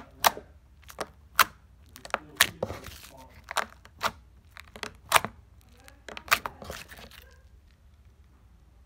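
Purple slime with gold beads in it being poked and pressed with fingertips, giving a string of sharp clicking pops and crackles about once or twice a second that stop about seven seconds in.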